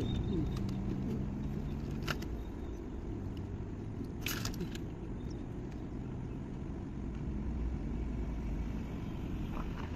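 A motor vehicle running on the move, a steady low rumble with a few faint clicks.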